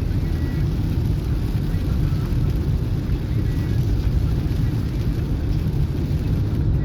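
Car driving through heavy rain, heard from inside the cabin: a steady low rumble of road and engine noise mixed with the hiss of rain on the car.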